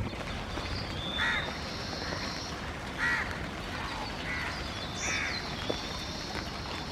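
House crow cawing, about four harsh caws a second or so apart, with thin high notes of smaller birds singing alongside.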